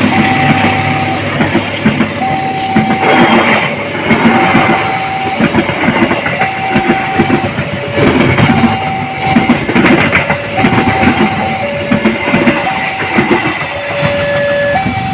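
A train passing close by, its wheels clattering over the rail joints, while an electronic two-note warning tone alternates between a higher and a lower note about once a second.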